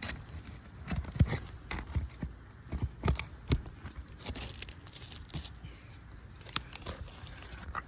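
Irregular knocks, taps and scrapes of a crowbar and asphalt shingles being worked loose on a roof, busiest in the first few seconds.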